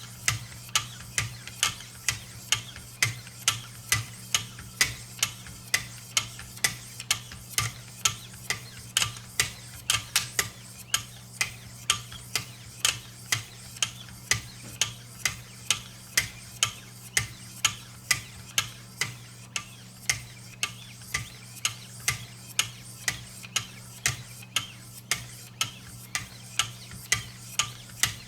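1500-grit diamond sharpening stones stroking along a VG-10 knife edge in a guided sharpening system, a short sharp scrape on every stroke at a steady pace of about two and a half a second.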